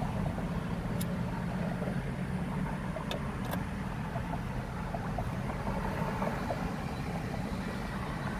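Steady low rumble of a car's engine and road noise heard inside the cabin, with other traffic going by and a few light clicks.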